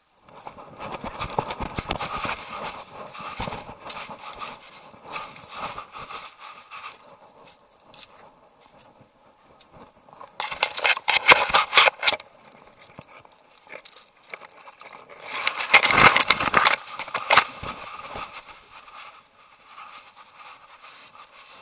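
Leaves, twigs and dirt scraping and rustling against a camera worn low on a dog as it noses through undergrowth, rough and crackly, with two louder bursts, one about halfway through and one about three quarters through.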